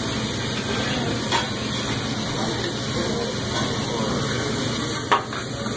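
Steak and shrimp sizzling on a hot teppanyaki griddle, a steady frying hiss. A sharp clink sounds near the end, with a fainter one about a second in.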